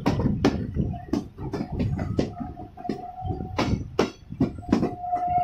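Passenger train carriages' steel wheels clattering over rail joints and points in loud, irregular knocks. A high, steady squeal comes in twice, about three seconds in and again near the end, as the carriages run round a curve.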